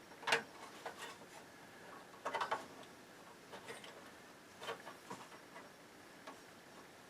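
Irregular light clicks and taps, a few at a time with gaps between, from hands working on an amplifier on a repair bench.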